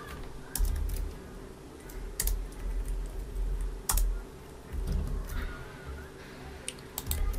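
Typing on a computer keyboard: an irregular run of keystrokes, sharp clicks mixed with dull thumps, with a short pause a little before the end.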